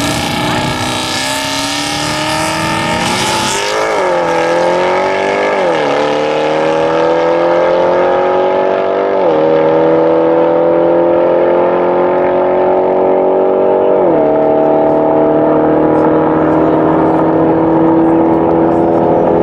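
Jaguar F-Type's supercharged 5.0-litre V8 with a Capristo exhaust, accelerating hard away through the gears. The pitch climbs, then drops suddenly at each of four upshifts before climbing again, and the sound loses its treble as the car pulls away.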